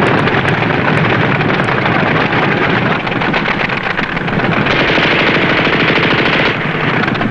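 Sustained rapid machine-gun fire, a dense, unbroken rattle of shots from a submarine's deck guns opening up in a surface gunfight.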